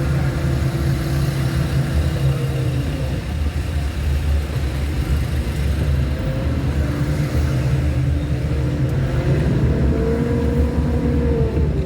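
A car driving on a road: steady low rumble of engine and tyre noise.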